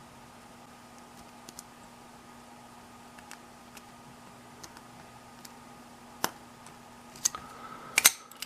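Faint metallic ticks of a lock pick working inside a Ruger gun padlock. A few louder clicks come in the last two and a half seconds, the loudest just after eight seconds in, as the lock opens. A low steady hum lies underneath.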